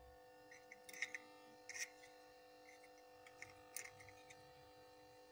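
A few faint, sharp clicks of a mobile phone charger's plastic case being handled and fitted over its circuit board, over a steady faint hum.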